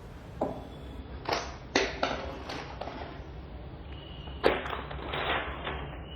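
A plastic snack packet crinkling as it is handled: a series of short rustles with pauses between them.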